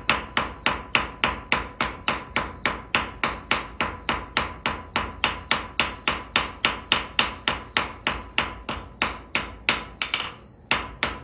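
Blacksmith's hammer striking hot iron on an anvil in a steady run of about four blows a second, each with a light metallic ring, as the point of a bar is drawn out. There is a brief break near the end before the blows resume.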